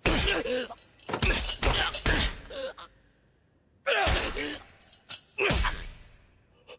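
Anime fight sound effects: a series of hard kick impacts, several in quick succession in the first two seconds and more about four and five and a half seconds in. Each is followed by a man's pained grunts and groans.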